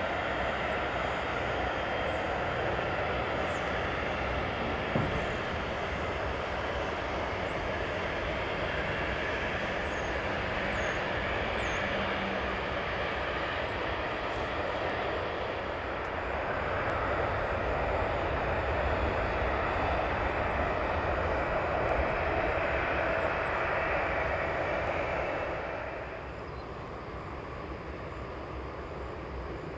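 Boeing 737-800's CFM56-7B turbofan engines running at low taxi power: a steady jet whine over a rumble. It grows a little louder past the middle, then drops to a quieter level near the end.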